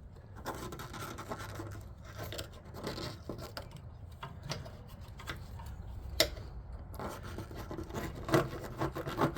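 Tool prying and scraping at a seized rubber compressor mount on a window air conditioner, its steel sleeve jammed by packed rust flakes: irregular scraping with sharp metallic clicks, a louder click about six seconds in and several knocks near the end.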